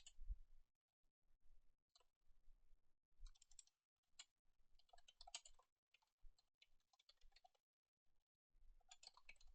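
Faint typing on a computer keyboard, in short runs of keystrokes separated by brief pauses.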